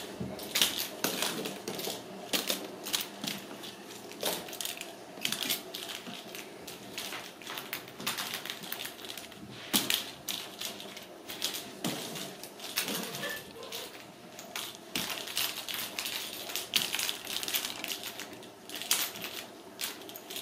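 Ragdoll kittens playing with a small toy ball on a string, making irregular light clicks and taps.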